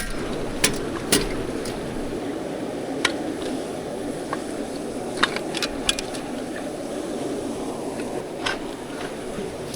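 Steady rushing background noise with a few sharp light clicks and taps scattered through it.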